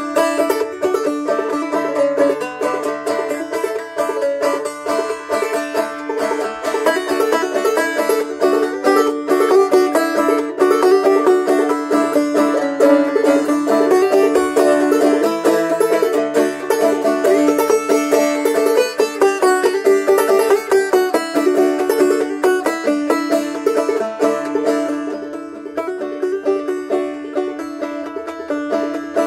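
Banjo played clawhammer style in D (C tuning capoed up), a steady run of struck and brushed notes carrying a Christmas carol tune, recorded through a phone microphone. It gets softer for a few seconds near the end. The player hears the tone as off and thinks the strings need replacing.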